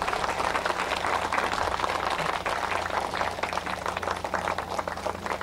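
Audience applauding, many hands clapping steadily, dying down near the end.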